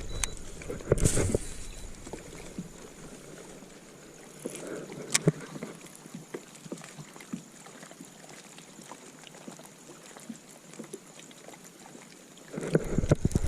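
Wind gusting on the microphone out on a fishing boat, with light water noise and a few scattered clicks and taps. The gusts are strongest at the start and again near the end.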